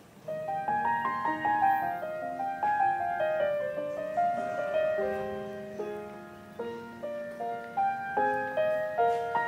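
Piano music: a melody of single struck notes that ring and fade, over lower sustained notes, starting just after a short pause.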